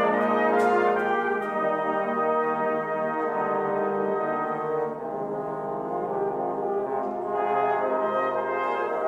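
Brass band of cornets, euphoniums and tubas playing a slow, sustained chordal passage. It softens about halfway through and swells again near the end.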